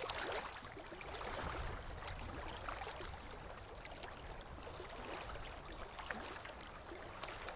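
Faint water sounds of a small wooden boat being rowed: gentle splashing and lapping of river water, with small scattered splashes from the oars.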